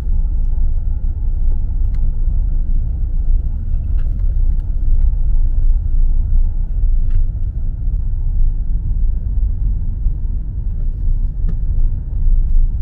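Steady low road rumble inside a moving car's cabin, with a few faint ticks.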